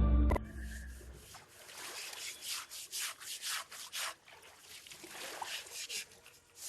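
Repeated rough scrubbing strokes on an elephant's hide, coming about two to three a second and fading toward the end, after a short low thump at the start.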